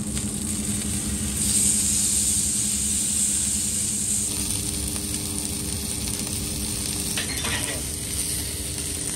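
Steak sizzling as it is laid down on a hot, oiled flat-top griddle, the sizzle swelling about a second and a half in and then holding steady. A steady low hum runs underneath.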